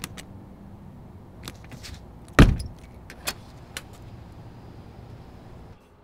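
Exterior door knob and door being tried: light clicks and rattles, then one loud thud about two and a half seconds in, followed by a couple more clicks, over a steady low rumble.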